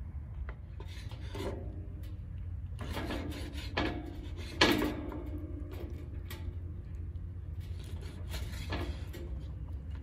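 Kitchen knife cutting raw lamb offal on a wooden cutting board: a few scraping, rasping strokes of the blade through the meat and against the board, with one sharper knock about halfway through.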